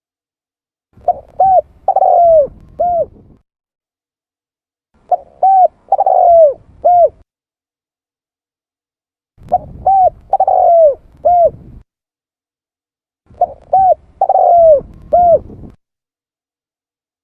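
Spotted dove (tekukur) cooing: four calls about four seconds apart. Each call is two short coos, a longer coo that falls in pitch, then a last short coo.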